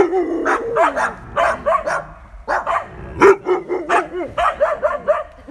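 Blue Thai Ridgeback barking in a rapid string of short, pitched barks, several a second, with a brief pause about two seconds in.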